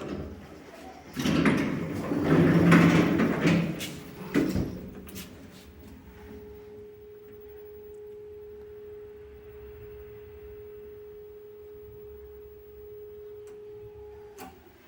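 ShLZ passenger lift doors sliding with a loud scraping creak for about three seconds, then shutting with a knock. After that a steady single-tone hum comes from the lift for about eight seconds and stops just before the end.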